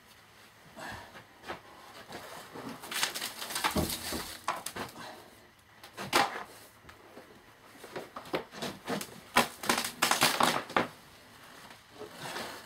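Rustling, scraping and irregular knocks of a large cardboard sheet being lifted and shifted on a table, in two busy spells with a few sharp knocks.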